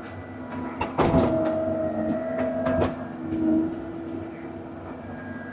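Cat 309 CR mini excavator's engine and hydraulics running steadily with a whine while it pushes brush in a burn pile. A sharp knock comes about a second in, and a few lighter knocks follow near the three-second mark.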